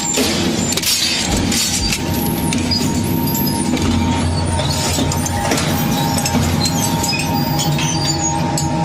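Scrap shredding machine running steadily with a constant hum, while the material being broken up clinks and cracks throughout.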